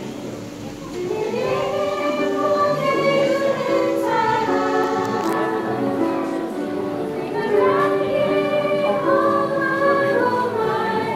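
A group of young girls singing a Korean song together into one microphone.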